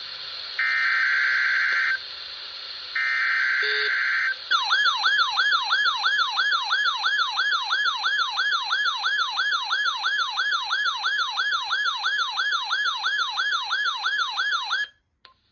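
NOAA Weather Radio Required Weekly Test: two buzzy SAME digital header bursts, then the alert tone warbling up and down about two and a half times a second for about ten seconds before cutting off suddenly.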